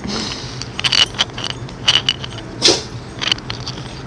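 Close-up eating sounds from a person eating pasta: an irregular string of short wet smacks and clicks, with one longer, sliding slurp near the end.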